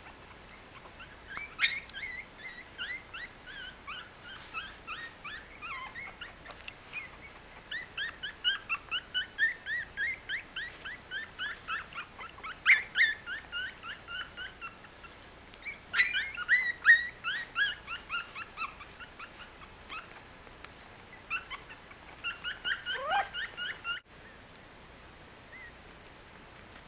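Very young Yorkshire Terrier puppies squeaking and whimpering in quick runs of short high-pitched cries, several a second, with short pauses between runs. The cries stop abruptly near the end, leaving a faint hiss and a thin steady high tone.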